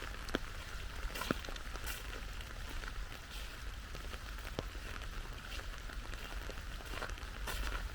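Steady rainfall, an even hiss with scattered sharper drips landing close by.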